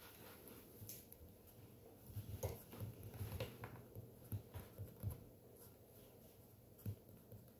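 Faint, irregular taps and light knocks of a stylus writing on a tablet screen.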